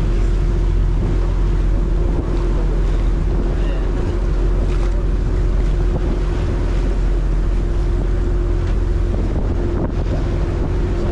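Dive boat running under way: a steady engine drone with a constant hum, water rushing in the churning wake, and wind buffeting the microphone.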